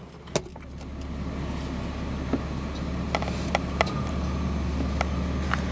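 Car engine running, heard from inside the cabin, its low hum getting gradually louder. A few short, sharp clicks come at scattered moments.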